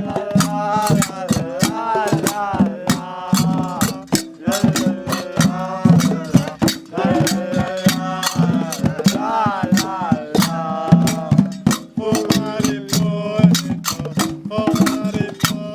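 Berber folk music: voices singing a wavering melody over dense, quick percussion strikes that carry on throughout.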